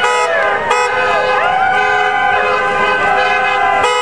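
Car horns honking from passing traffic, several tones overlapping. There are short toots near the start and again near the end, and a longer horn tone that glides up in pitch, holds and slides back down.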